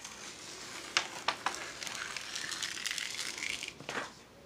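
A paper sheet rustling and crinkling as it is lifted and folded back off a diamond painting canvas, with a few sharp crackles about a second in.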